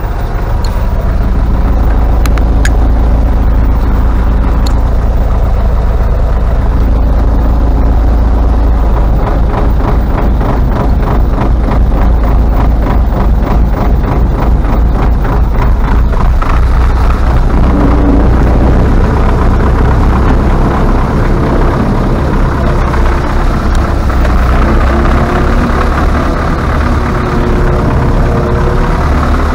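Tractor diesel engine running steadily, heard loud from inside its cab while it tows another tractor. A fast, even rattling clatter runs through the middle stretch.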